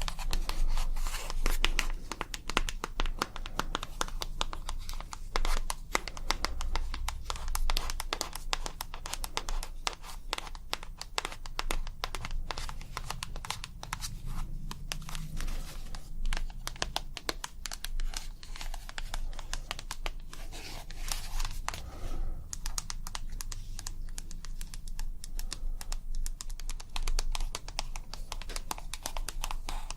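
ASMR tapping and crinkling close to the microphone: a dense, unbroken run of small quick clicks and rustles, thinning a little in the second half.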